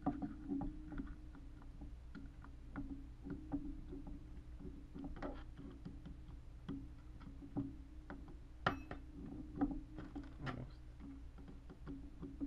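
Scattered small clicks and scrapes of an Allen key turning a screw in the grip frame of an Empire Trracer pump paintball gun, with a sharper click about nine seconds in, over a steady low hum.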